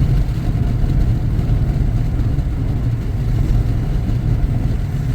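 Steady low rumble of a car driving, engine and road noise with no distinct events.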